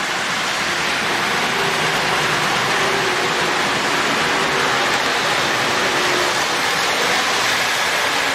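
A 1957 postwar model electric diesel locomotive pulling a heavy freight train around the track: the steady whir and rumble of metal wheels on rail and the running motor, with a faint hum.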